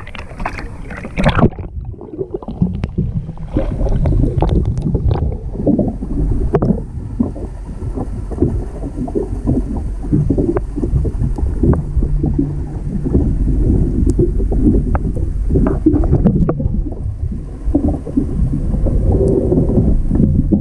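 Splashing as an action camera goes under the surface, then the muffled underwater sound of a swift current rushing past it: a dense low rumble with scattered knocks and clicks from handling the camera.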